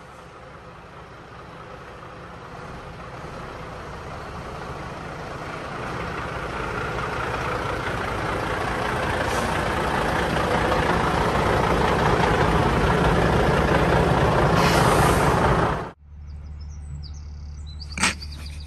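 Scania 94D truck's diesel engine running, growing steadily louder, with a rush of hiss just before it cuts off abruptly about 16 seconds in. After that comes a low steady hum and a couple of sharp knocks.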